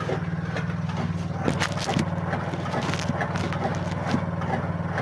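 Honda 70 motorcycle's small single-cylinder four-stroke engine running steadily as it drives a chaff cutter, with the cutter knocking and its blades chopping fodder, hardest about 1.5 to 2 seconds in and again around 3 seconds.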